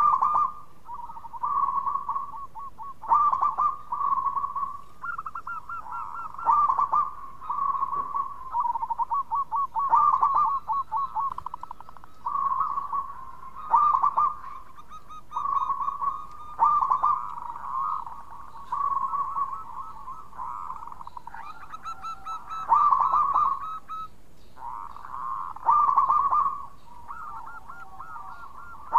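Zebra dove (perkutut) singing its soft, rolling cooing song: a nearly unbroken run of quick trilled coos at one pitch, with louder phrases about every three seconds.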